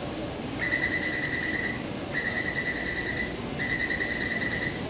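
Taipei Metro door-closing warning beeper: a high-pitched electronic tone sounding in long repeated beeps, three of about a second each with a fourth starting near the end, warning that the train and platform screen doors are about to close. A steady low hum of the station platform runs underneath.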